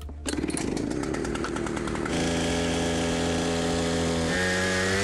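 Husqvarna two-stroke chainsaw running at high revs and cutting through a wooden plank. It starts about a quarter second in, settles into a steady high engine note after about two seconds, and the pitch steps up slightly near the end.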